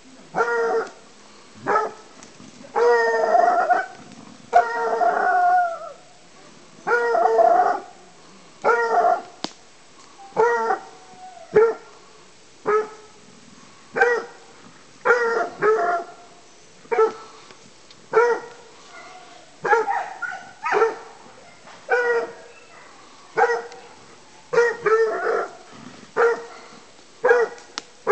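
A petit bleu de Gascogne hound baying at a wild boar it is holding at bay, giving about one call a second. The calls are long and drawn out over the first several seconds, then shorter and sharper.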